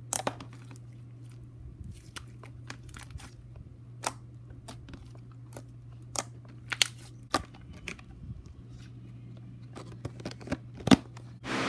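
Pumpkin slime being poked and squished by hand, giving irregular sharp pops and clicks, with a steady low hum underneath.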